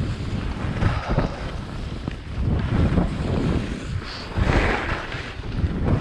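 Wind buffeting the microphone of a camera carried by a skier moving downhill, a gusty rumble that swells and dips, over the hiss of skis sliding and carving on packed snow. A louder hissing swell comes about four and a half seconds in.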